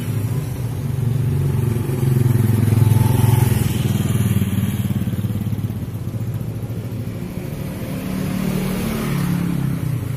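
Motorcycle and car engines passing close by at low speed on a road. The sound is loudest about two to three seconds in.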